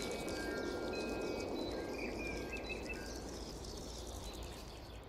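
Ambient computer-generated soundscape with a rushing noise bed, fine high ticking like insects and a few bird-like chirps about two seconds in. The last sustained chime tones die away early on and the whole sound fades out steadily.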